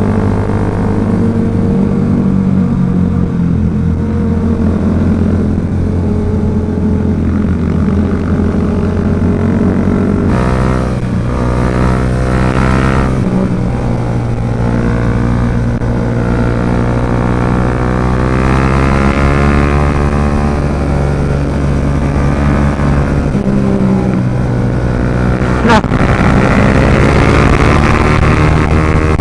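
Motorcycle engine running on the move, its pitch stepping about ten seconds in and then rising slowly as it accelerates. A single sharp click comes near the end.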